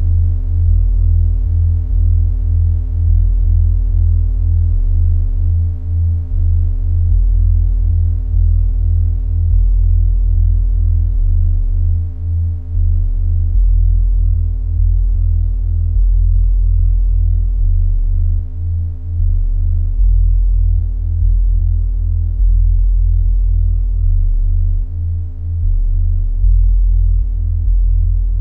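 Minimal electronic drone music: a deep, steady synthesizer bass with sustained higher tones stacked above it, the low end dipping and swelling in a slow cycle about every six seconds.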